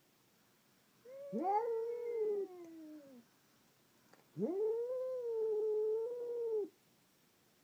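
Two cats caterwauling at each other in a hostile standoff: two long, drawn-out yowls. The first, about a second in, has two voices overlapping, one falling in pitch as the other rises; the second, a little over a second later, is held steady for about two seconds.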